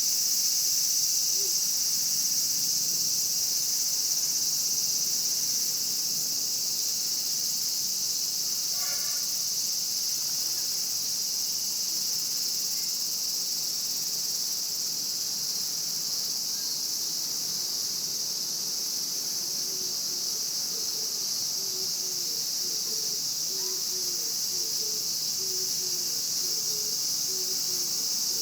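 Cicadas droning in a steady, unbroken high-pitched chorus.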